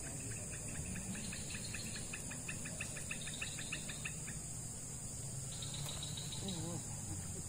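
Insects trilling steadily in a high, continuous drone, with a rapid run of chirps, about seven a second, for roughly three seconds in the first half.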